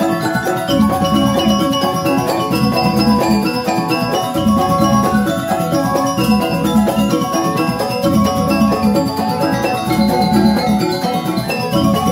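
Balinese joged bumbung gamelan playing: bamboo xylophones (grantang) in fast, dense runs of notes over kendang hand drums.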